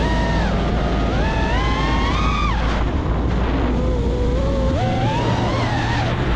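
FPV quadcopter motors whining, the pitch climbing and dropping with the throttle, with a steady low bass underneath.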